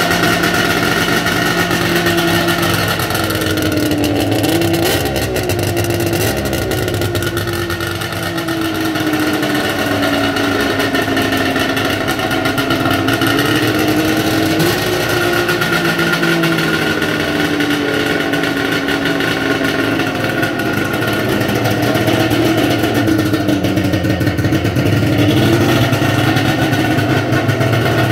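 1996 Polaris Ultra 680 snowmobile's three-cylinder two-stroke engine, fitted with aftermarket SLP pipes, running steadily. Its pitch rises and falls a little a few times, with slight revving.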